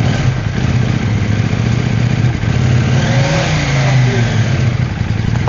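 KTM 790 Adventure's parallel-twin engine running at high revs just after starting, the revs swelling around three to four seconds in. This is the bike's first run after troubleshooting its hard starting and a cylinder that sometimes won't fire.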